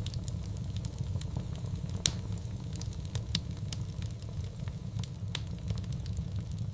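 Fire in a fireplace crackling over a steady low rumble, with scattered sharp pops. The loudest pop comes about two seconds in, and smaller ones follow about three and a half and five seconds in.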